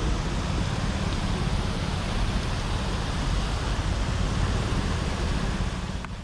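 Steady rushing city street noise of passing traffic, with a deep rumbling wind buffet on the microphone. It fades out at the very end.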